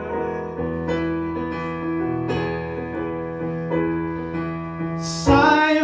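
Keyboard playing an instrumental run of sustained chords that change every half second or so, with a louder, sharper attack about five seconds in, leading into the verse.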